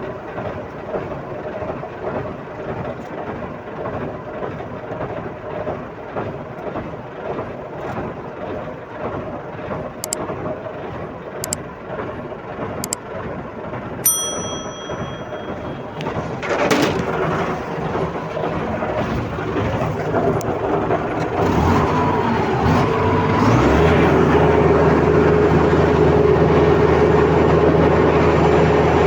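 Heavy diesel earthmoving machinery running, with a few sharp ticks, a short beep about halfway, and a loud knock soon after. Toward the end the engine note rises and settles into a steady, higher-pitched run.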